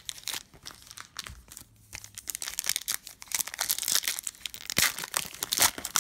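A trading-card pack wrapper crinkling and tearing as it is ripped open, in a run of crackles that gets busier and louder about halfway through.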